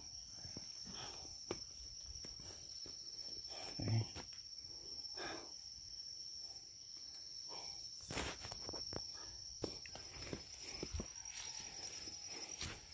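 Insects trilling steadily at one high pitch, over footsteps on wet ground and leaves with scattered rustles and knocks.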